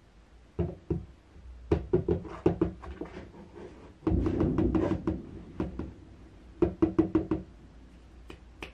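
A plastic cat flap being pushed and tapped by hand, clacking against its frame in quick clusters of knocks, with a longer rattling stretch about four seconds in.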